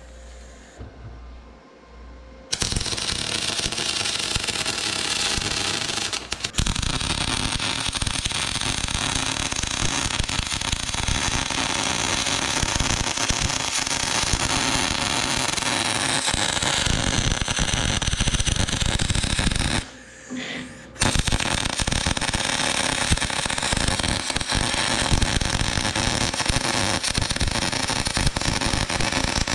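JEGS solid-wire MIG welder arc crackling steadily as steel is welded. It starts a couple of seconds in, breaks off for about a second two-thirds of the way through, then resumes.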